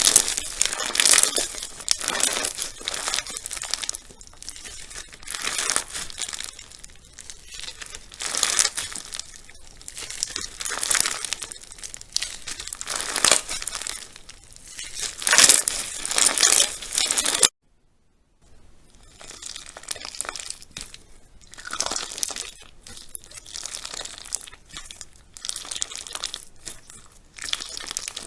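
Hands squeezing and stretching slime, giving repeated bursts of crackling, crunching noise, about one every second or two. The sound breaks off for about a second roughly two-thirds of the way through, then carries on.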